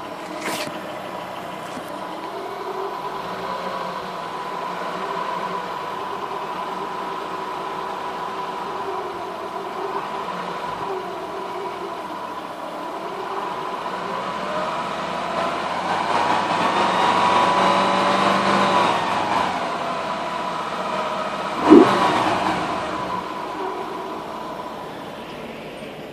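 Ford Focus ST 2.5 turbocharged five-cylinder engine running with a steady high whine that a fresh cambelt replacement has not cured. About two-thirds of the way in the engine is revved up and falls back, and the whine holds its pitch through the rev. Near the end there is one sharp loud thump.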